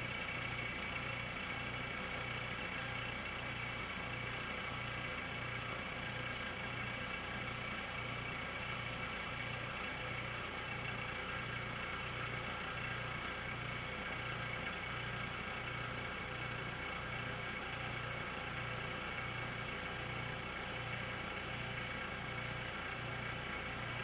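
An automotive A/C refrigerant service station running through one stage of its cycle: a steady mechanical hum with several high whining tones over a low throb that pulses about one and a half times a second.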